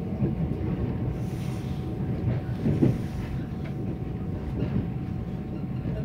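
Mugunghwa-ho passenger train running, heard from inside the carriage: a steady low rumble of wheels on rails with a few louder knocks.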